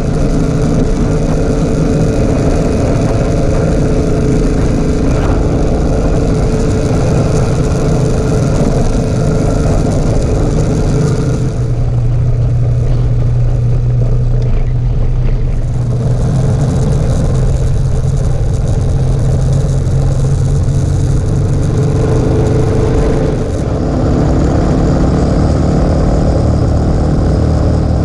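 Suzuki DR650's single-cylinder four-stroke engine running steadily at cruising speed on a dirt road, mixed with wind and tyre noise. The wind and road hiss eases for a few seconds about halfway through, then picks up again.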